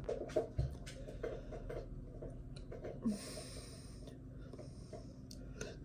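A person breathing, with faint scattered clicks and taps and a short breathy exhale about three seconds in.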